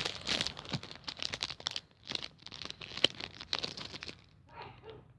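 Wrapping crinkling and tearing in irregular crackles as a package is unwrapped by hand, easing off near the end.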